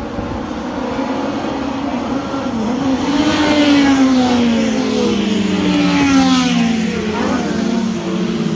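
Classic touring race cars running past one after another over a steady hiss of heavy rain and tyre spray. Their engine notes are loudest about four and six seconds in and fall in pitch as they go through the first corner.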